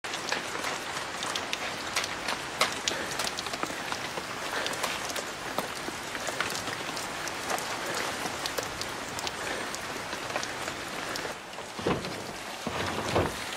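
Heavy rain falling: a steady hiss with a dense patter of drops. About eleven seconds in it turns duller, heard from indoors, with a couple of low thumps.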